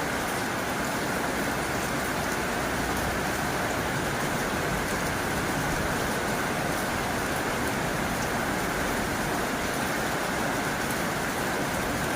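Heavy rain drumming steadily on a tin roof, a dense even hiss with faint scattered drop ticks.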